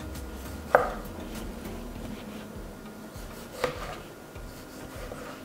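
Kitchen knife dicing a tomato, the blade knocking on a plastic cutting board: two sharp knocks, about three seconds apart.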